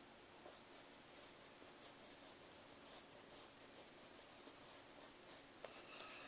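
Faint, short strokes of a small paintbrush dabbing and dragging on canvas, coming irregularly.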